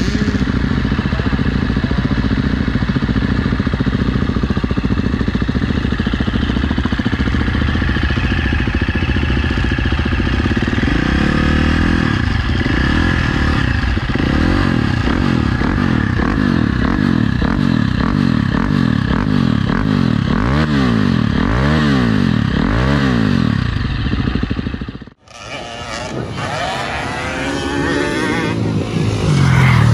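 Off-road dirt bike engines running close by, their revs swelling and falling. About 25 seconds in the sound cuts out abruptly, then dirt bikes are heard again, getting louder near the end.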